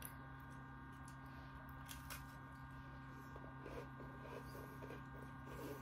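Faint crackles and clicks of a person chewing an Oreo Space Dunk cookie with popping candy in the creme and twisting it apart, over a steady electrical hum.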